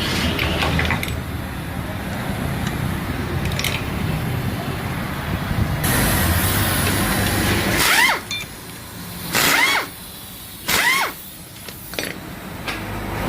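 Three short bursts of a compressed-air tool in the second half, each rising and falling in pitch, over a steady low hum of background noise.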